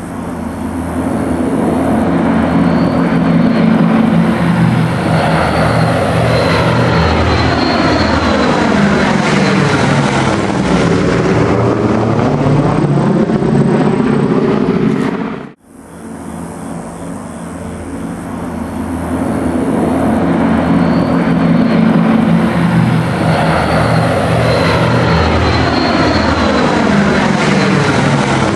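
A World War 2 piston-engined propeller aircraft flying past low, its engine running steadily while the tone sweeps as the plane passes. About halfway through the sound cuts out briefly, and the same pass plays again.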